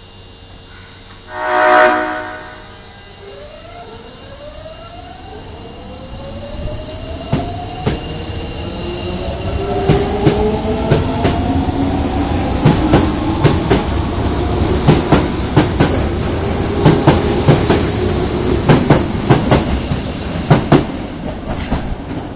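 Osaka Metro 22 series subway train's horn, a unit with an unusual, off-sounding tone, gives one short blast. The train then pulls away: its motor whine rises steadily in pitch in several overlapping tones, and the wheels clack over rail joints more and more often as it gathers speed.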